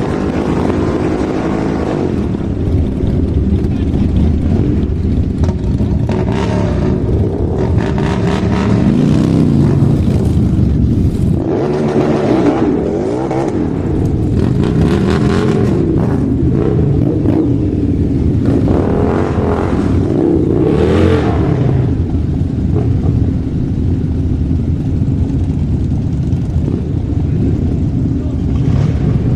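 Motorcycle engine running and being revved repeatedly, its pitch rising and falling through several swells.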